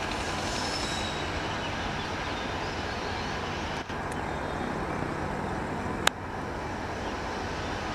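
WAP-7 electric locomotive approaching with its passenger train: a steady, even rumbling noise. A sharp click about six seconds in is the loudest moment, and two fainter clicks come a couple of seconds earlier.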